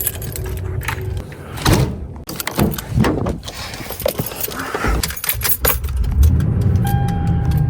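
Keys jangling among a run of clicks and knocks, then a car's engine and road rumble building over the last couple of seconds, with a short steady beep near the end.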